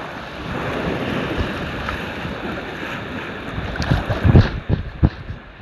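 Water rushing and splashing around a tube on the water, with wind buffeting the microphone and a few heavy low bumps about four and five seconds in.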